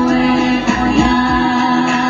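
Polynesian song with singing: a voice holds a long note over a steady low beat.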